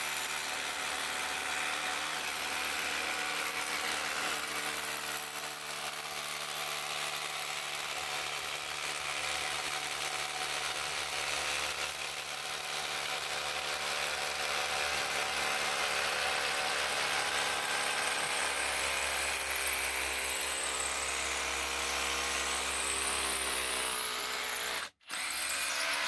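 Ridgid Octane cordless rotary hammer, set to hammer-plus-drill, running steadily under load as its bit hammers through 6-inch cured concrete. It breaks off for a moment near the end and starts again.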